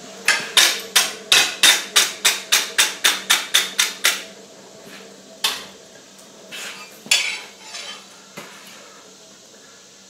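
Hand wire brush scrubbed fast over a hot steel bar on an anvil, clearing scale from the forging: about fourteen quick, sharp strokes, some three or four a second, for about four seconds. Then a single knock and a few shorter scraping sounds.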